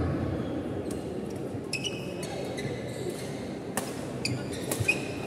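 Badminton rally: several sharp cracks of rackets striking the shuttlecock, about one a second, with short squeaks of shoes on the wooden court over a murmur of spectators in a large hall.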